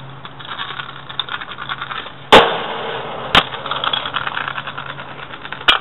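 Kick scooter's small wheels rolling over concrete, a steady gritty rattle, with two sharp knocks about two and three and a half seconds in, the first the loudest, and a short click near the end.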